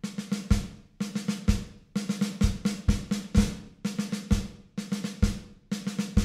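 Electronic drum kit played alone: a heavy kick drum about once a second, with quick runs of snare strokes between the kicks.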